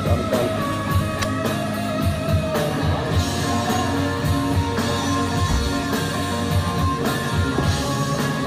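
Background rock-style music with guitar.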